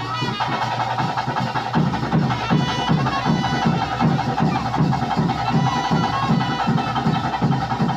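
Live traditional ritual music: a sustained high note held over drumming that settles into a fast, even beat about two seconds in.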